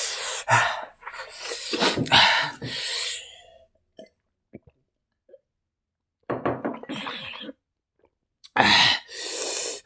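A person breathing out hard in loud, breathy puffs, with a quiet stretch around the middle holding a few small clicks from drinking.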